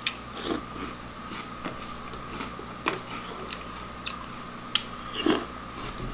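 Mouthfuls of crunchy Reese's Puffs cereal being bitten and chewed, with several sharp clicks of a metal spoon against a plastic bowl, the loudest about five seconds in.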